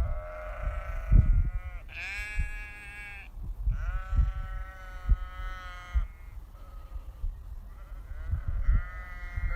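Sheep bleating: three long bleats one after another in the first six seconds, a faint short one after a pause, and another starting near the end. Low dull thumps sound underneath throughout.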